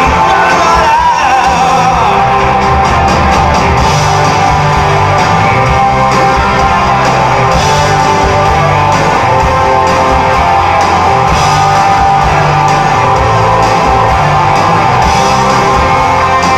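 Live rock band playing: electric guitars, bass and drums, with a male voice singing, heard loud and full from within the audience in a hall.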